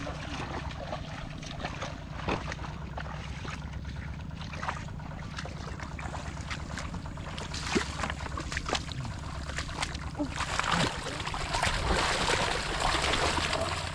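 Wading footsteps in shallow water with scattered small splashes; about ten seconds in, louder continuous splashing as hands churn and grab in the muddy water.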